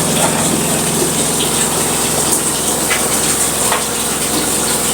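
Spin-dryer tub of a Sharp ES-T86CL twin-tub washing machine spinning steadily, a low motor hum under a constant rush of water being flung out and drained. The running is smooth, not noisy.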